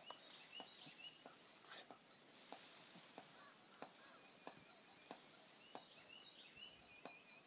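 Near silence in the open air: faint bird chirps near the start and again near the end, with soft ticks about every half second to second.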